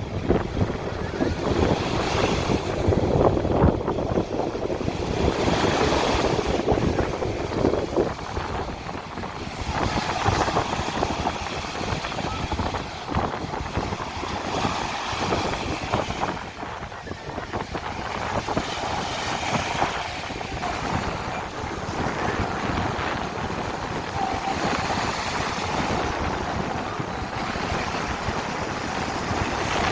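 Small sea waves washing onto a sandy beach, the surf noise swelling and falling every couple of seconds, with wind noise on the microphone.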